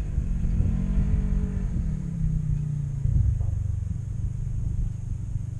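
Sand rail engine revving lightly, then dropping back about two seconds in to a steady idle with a low rumble.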